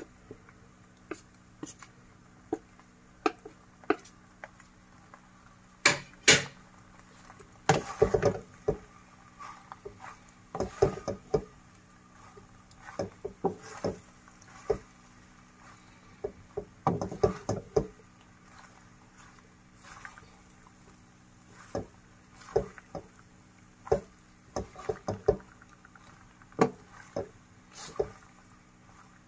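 Wooden spatula stirring and tossing penne in a dark nonstick pan: irregular knocks and scrapes against the pan, some in quick clusters, over a faint steady hum.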